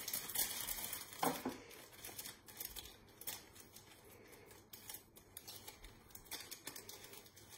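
Scissors snipping and a plastic packet crinkling as the packet is handled and cut open, in short, scattered clicks and rustles.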